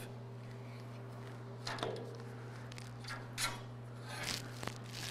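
Faint scuffs and rubbing of gloved hands picking up a grinder and handling a steel bar on a steel table, a few short scrapes spread through, over a low steady hum.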